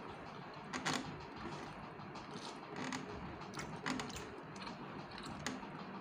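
Eating sounds: chewing, with scattered short mouth clicks and smacks as grilled fish is picked apart by hand over a foil tray.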